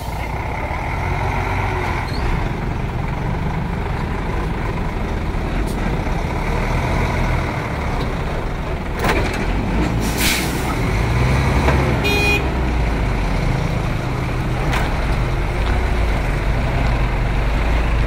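Diesel truck engines running under load as a concrete mixer truck tows a small truck out of deep mud. A short burst of air hiss, like an air brake, comes about ten seconds in.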